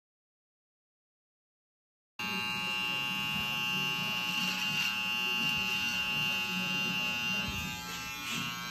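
Silence for about two seconds, then electric hair clippers buzzing steadily at a constant pitch.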